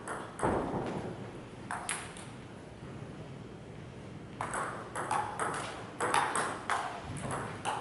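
Table tennis ball clicking off rubber paddles and the table: a few strokes near the start, then a quick run of clicks from about halfway in as a rally is played.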